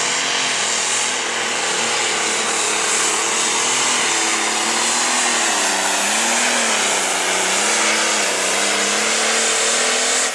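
John Deere light pro stock pulling tractor's turbocharged diesel engine running flat out under load as it drags the weight-transfer sled. The engine pitch dips and recovers a few times in the second half.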